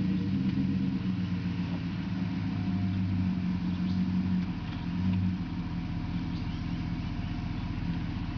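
Truck engine running at low, steady revs under load as the truck slowly pushes against a tree trunk; the engine note eases off a little about five seconds in.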